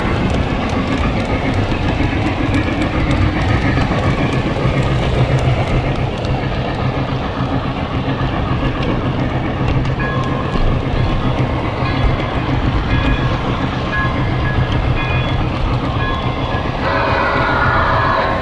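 Train running past with a steady rumble and wheels clattering over rail joints; a horn begins to sound near the end.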